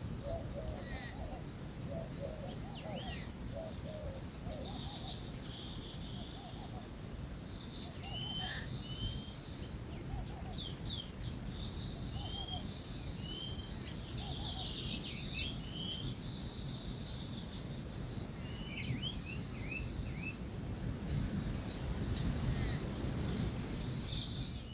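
Birds chirping repeatedly, with many short calls, over a steady low background noise.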